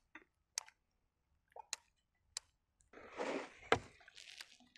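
Mostly quiet with no engine running: a few faint clicks, then a scuff and a single sharp knock about three and a half seconds in, from the dirt bike being laid over on its side.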